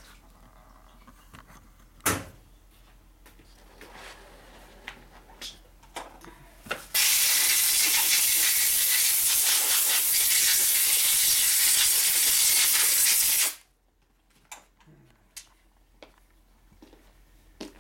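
A sharp knock about two seconds in and a few light clicks, then a loud, steady pressurized hiss lasting about six seconds that starts and stops abruptly.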